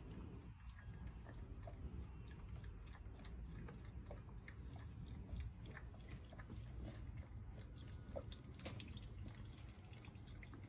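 Faint chewing: irregular, crunchy clicks, several a second, over a low hum.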